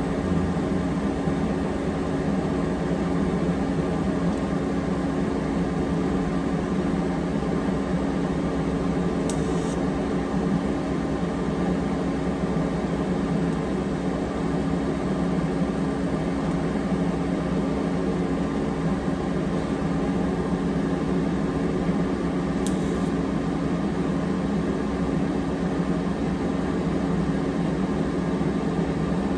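TIG welder running a weld on a stainless steel wastegate dump pipe and flange with 308 filler rod: a steady hum and hiss, with two brief crackles.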